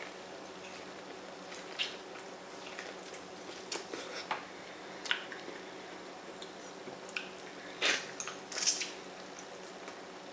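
Close-miked eating: biting and chewing sauce-coated corn on the cob from a seafood boil, with scattered wet mouth clicks and smacks and a few louder wet bursts about eight seconds in, over a faint steady hum.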